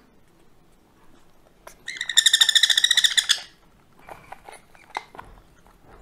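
Sun conure chick giving a fast, stuttering, high-pitched begging call, about a second and a half long, while being syringe-fed formula: the feeding response of a hand-reared parrot chick. A few faint clicks follow.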